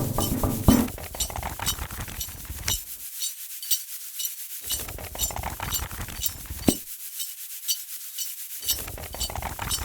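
Rhythmic rubbing and scraping with a steady run of evenly spaced high clicks, arranged into a beat; the low part of the sound cuts out abruptly twice and comes back.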